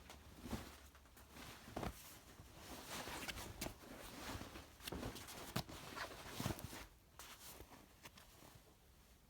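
Faint handling noise: irregular rustling with soft knocks and short clicks, thinning out after about seven seconds.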